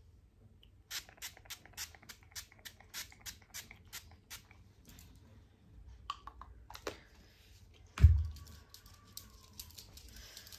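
Pump bottle of makeup setting spray spritzed over and over, about three to four short sprays a second for several seconds, then a few more sprays; a single loud low thump about eight seconds in.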